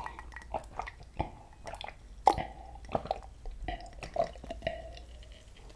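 A person gulping water from a glass mug, swallowing over and over, roughly one or two gulps a second.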